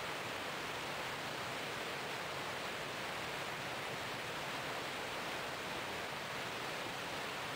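Steady rushing hiss of water streaming past a moving boat, even throughout with no single sound standing out.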